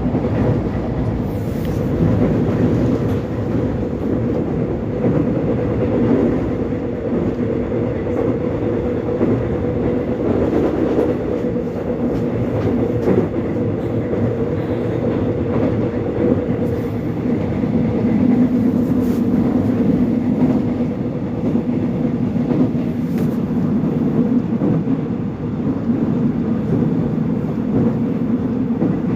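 Korean subway car running between stations, heard from inside: a steady, loud rumble of wheels on track with a constant motor hum and a few faint clicks.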